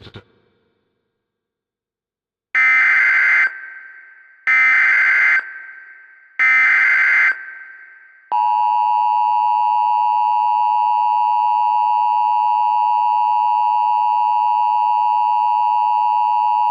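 Emergency Alert System SAME header: three loud, buzzy digital data bursts about two seconds apart, each fading out in an echo. About eight seconds in, the steady two-tone EAS attention signal starts. It marks the start of an emergency alert.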